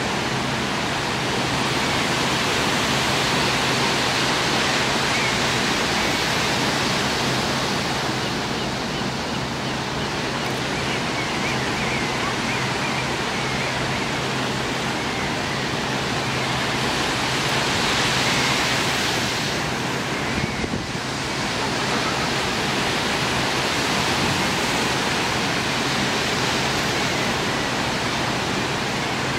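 A steady outdoor rushing noise that swells and eases slowly, with a brief dip about two-thirds of the way through and a few faint high chirps around the middle.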